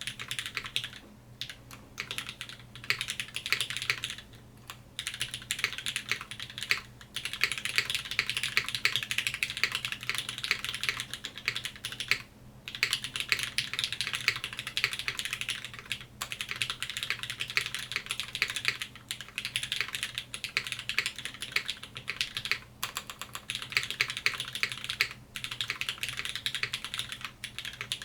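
Typing on a Velvet Pro custom mechanical keyboard fitted with lubed Cherry MX Black linear switches, an aluminium plate and GMK keycaps, picked up by a camera's built-in microphone. Quick, continuous keystrokes, broken every few seconds by brief pauses.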